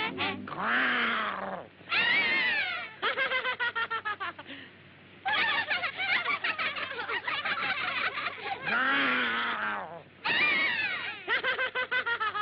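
Cartoon character vocal effects without words: two long cries that rise and fall in pitch, alternating with stretches of fast, rapidly pulsing chatter.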